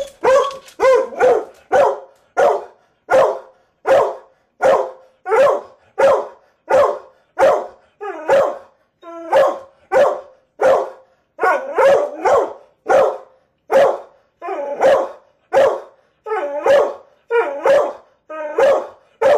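Dog barking in a long, steady run, about three barks every two seconds, a little quicker at the start. It is alarm barking at a raccoon on the roof outside, which the dog is kept from going out to.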